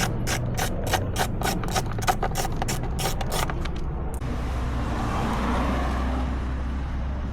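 Hand ratchet wrench clicking in an even rhythm, about three clicks a second, as a fastener is turned on the dirt bike. About four seconds in the clicking stops and a steady rushing hiss takes over.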